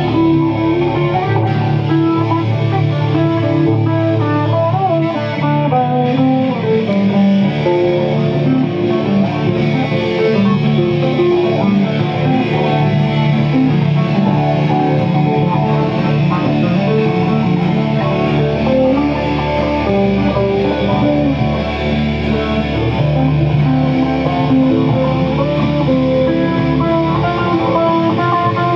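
An acoustic guitar and an electric guitar playing together: a steady instrumental passage of many overlapping plucked and strummed notes, with no singing.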